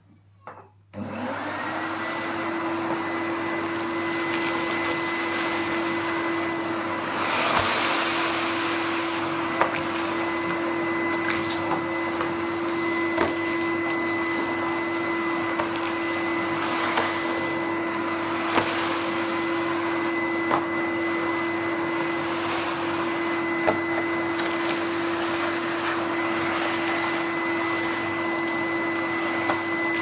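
Numatic Henry HVR 200 tub vacuum cleaner switched on about a second in, its motor spinning up quickly to a steady hum with a thin whine above it. Short sharp clicks come every few seconds as the floor tool is worked over the carpet.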